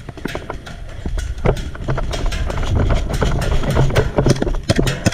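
Footsteps and gear jostling as a player runs across grass, heard as irregular sharp knocks about two or three a second, over wind rumbling on a body-worn camera's microphone. It grows louder about a second in.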